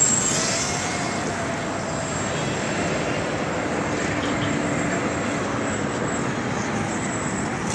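Radio-controlled speedboat's motor whining in the distance as the boat runs across the pond, its pitch shifting a little, under steady wind noise on the microphone.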